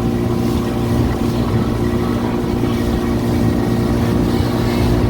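Motorboat engine running steadily while the boat is underway, a constant drone with rushing noise over it.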